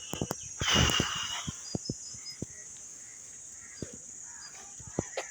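Outdoor nature ambience: a steady high insect drone with faint bird chirps and scattered sharp clicks, and a brief louder rush with a held high note about a second in.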